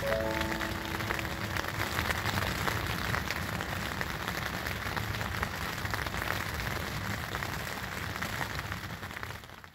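Steady rainfall sound, a dense even hiss of drops, fading out over the last second.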